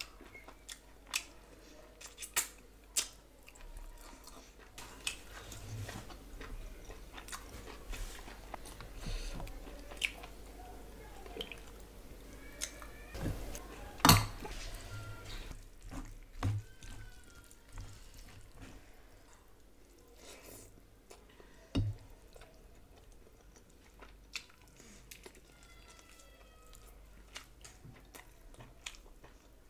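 Close-up eating sounds: chewing and mouth noises as rice and curry are eaten by hand. Short sharp clicks of fingers and food against steel dishes come throughout, the loudest about halfway through as a hand reaches into a bowl.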